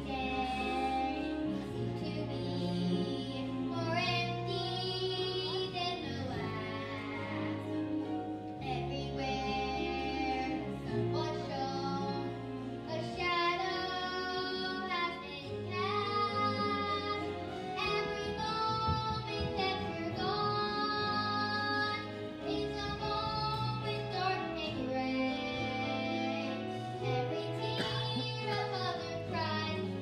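A child singing a solo song with instrumental accompaniment, holding long notes over a steady bass line.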